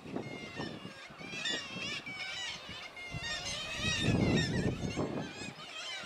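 Black-legged kittiwakes calling at their cliff nesting colony: many overlapping, wavering calls start about a second in and go on. A low rumble swells in the second half.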